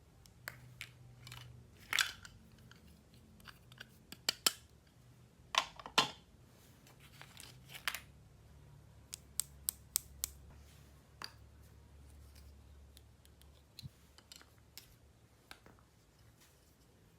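Toy packaging and plastic toy pieces being handled in an unboxing: a string of sharp clicks and taps, with louder crinkly rustles about two seconds and six seconds in.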